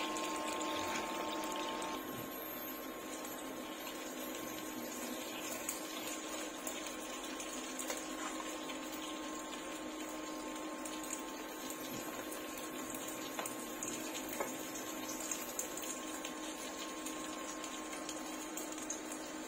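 Water running steadily from a kitchen tap.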